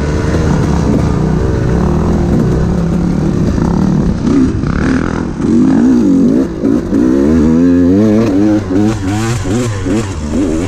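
Enduro dirt bike engine revving up and down as it is ridden, its pitch rising and falling with the throttle, in quicker swings through the second half.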